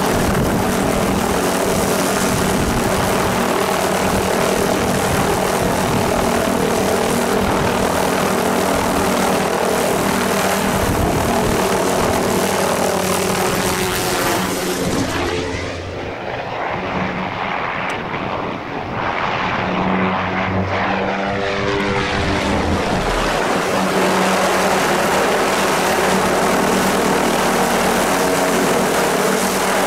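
Helicopter hovering close overhead on a long-line lift, its rotor and turbine running loud and steady. About halfway through it thins and dips, its pitch sliding as it moves off, then it comes back to full strength.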